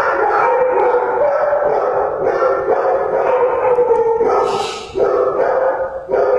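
Shelter dogs in their kennels barking and howling together in a loud, near-continuous din, with brief dips about five and six seconds in.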